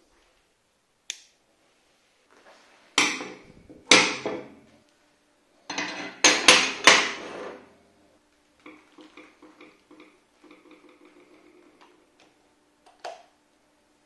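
Flat steel bars and hand tools set down on a workbench: a few sharp metallic clanks and clatters, then a run of lighter ticks with a faint ringing tone.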